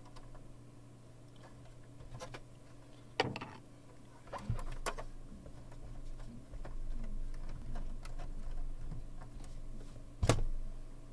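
Small screwdriver driving the back screws into the metal standoffs of an Apple ProFile controller board: scattered clicks and taps of metal on metal, the sharpest about three seconds in and near the end, over a faint low hum.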